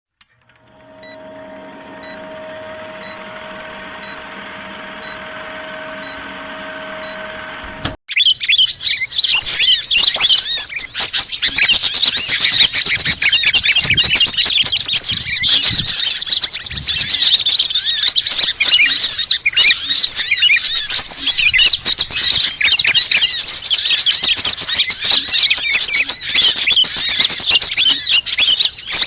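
For about the first eight seconds there is a quieter stretch of steady humming tones with a faint beep about once a second. Then it cuts suddenly to a loud bird-lure recording: many small songbirds (sunbirds, sooty-headed bulbul, kemade and sogon) chirping and twittering at once. The high-pitched calls overlap continuously.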